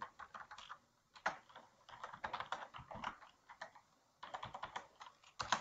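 Computer keyboard keys clicking in quick, irregular runs of typing, with a short pause a little after the middle and two louder keystrokes near the end.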